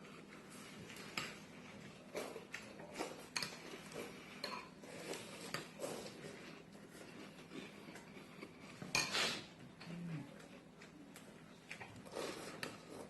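A spoon and a fork clinking and scraping against cereal bowls as two people eat cereal, in irregular clicks and knocks, with a louder noisy burst about nine seconds in.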